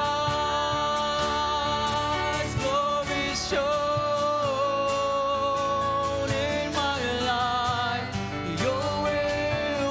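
Worship band playing a slow song: a woman and a man singing long held notes with vibrato over acoustic guitar, keyboard and cajón.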